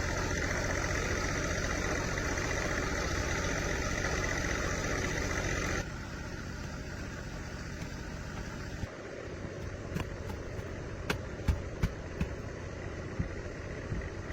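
An engine running steadily, cut off abruptly about six seconds in. A quieter background follows, with several sharp knocks and taps near the end.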